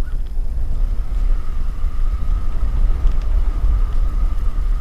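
Steady low rumble, with a faint, steady high whine joining about a second in.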